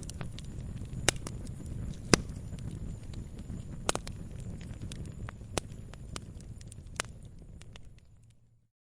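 Campfire burning with a low rumble and sharp wood crackles and pops every second or two, then fading out to silence near the end.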